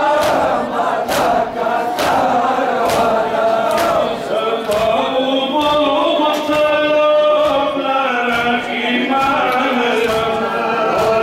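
A crowd of men chanting a Muharram lament (nauha) together, with sharp slaps of hands on bare chests (matam) keeping time about once a second.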